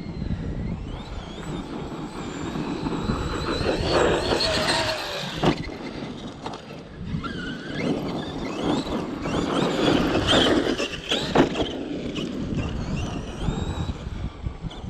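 Traxxas X-Maxx 8S RC monster truck driving hard on dirt: its brushless motor whines up and down in pitch with the throttle, and its tyres scrabble and churn. Two sharp knocks stand out, about a third of the way in and again near the end.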